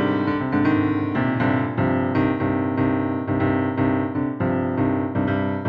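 Piano music: a steady run of notes played over sustained chords, with no voice.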